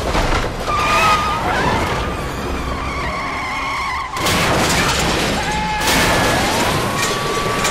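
Film sound effects of a car chase: tyres skidding and squealing, then a crash about four seconds in. After the crash, a car slides on its side and metal scrapes along concrete with long squeals.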